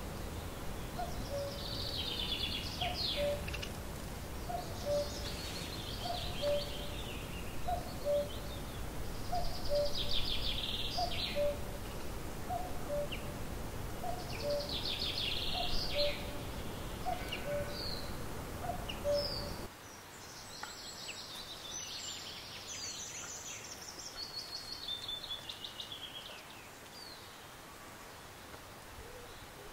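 Woodland birdsong: songbirds singing short trilling phrases every couple of seconds. Through the first two-thirds a lower two-note call repeats steadily, about one a second. Low background noise drops away suddenly about twenty seconds in, and the songs go on more thinly.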